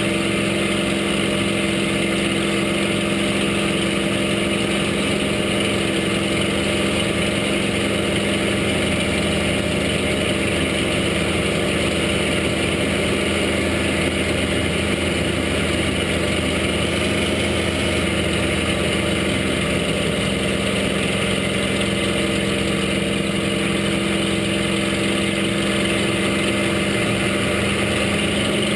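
Rolls-Royce Merlin V12 engine of a two-seat Spitfire heard from inside the cockpit in flight: a steady, very noisy drone that holds an even tone throughout.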